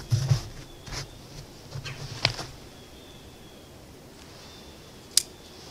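A few short clicks and knocks from the Ruger LCP II .22 pistol being handled as it is readied to fire, with one sharp click, the loudest, about five seconds in.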